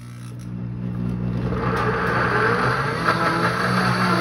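Pampered Chef Deluxe Cooking Blender's motor running on its jam setting, its blade chopping through chunks of apple. It is one pulse of the program's start-stop blending cycle and grows louder over about the first two seconds, then runs steadily.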